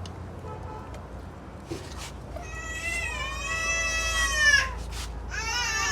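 A cat meowing: one long drawn-out meow about halfway in, then a shorter one at the end.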